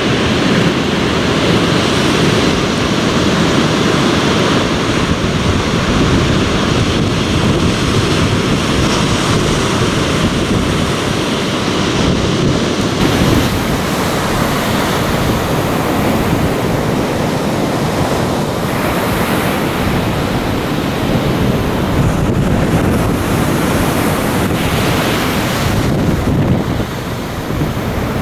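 Surf on the Sea of Okhotsk shore, a continuous wash of waves, with wind buffeting the microphone.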